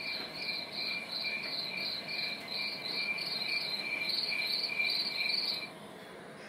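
Crickets chirping in a steady rhythm of about three chirps a second, heard from the TV's sound during the night-time sign-off scene, cutting off abruptly near the end.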